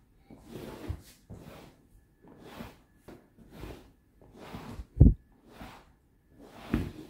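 Damp cloth wrapped over a casserole lid rubbed in strokes across a sofa's shiny leather-look upholstery: a swish about once a second. About five seconds in there is one louder thump.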